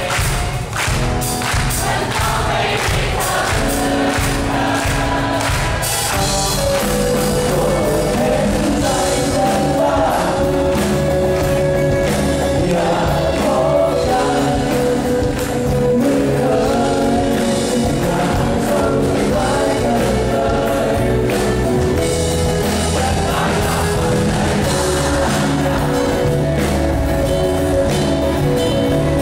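Live band performance of a song: a singer over acoustic guitar and drum kit.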